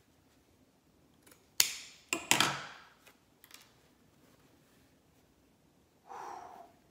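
Snake shipping packaging being opened by hand: three sharp plastic crackles or snips in quick succession, then a short softer rustle near the end.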